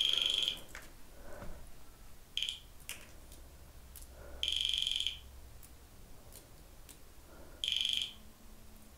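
REM pod alarm going off again and again in bursts of a high electronic beep: one ending just after the start, a short one about two and a half seconds in, a longer one around the five-second mark, and another near the end. The pod is being triggered by a disturbance of the field around its antenna.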